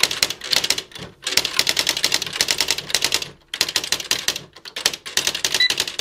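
Sears SR1000 electronic daisywheel typewriter, made by Smith-Corona, printing as it is typed on: fast runs of crisp print-hammer strikes at about ten a second, broken by short pauses about one second and three and a half seconds in. The freshly cleaned machine is working properly.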